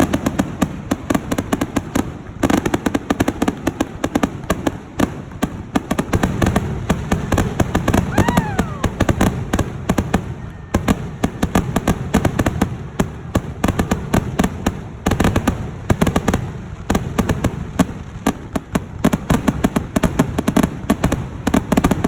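Fireworks going off in rapid succession: dense crackling and popping with repeated bangs, and a brief whistle about eight seconds in.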